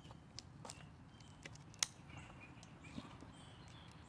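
A few sharp clicks and taps from a hand tool working on a metal slingshot frame, the loudest a little under two seconds in.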